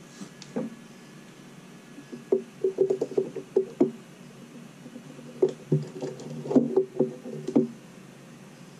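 Quick runs of light knocks and clicks from small hardware being handled against a hard desktop, in two clusters: one from about two to four seconds in, another from about five and a half to seven and a half seconds in.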